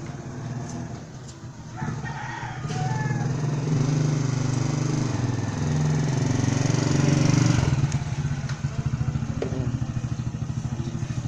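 A small engine running close by. Its hum swells louder through the middle, then drops after about eight seconds to a fast, even pulsing idle.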